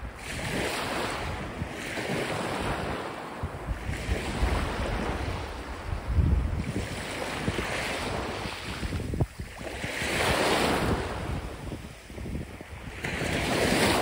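Small sea waves breaking at the shoreline and washing up the sand, each rush swelling and fading every few seconds, with wind buffeting the microphone.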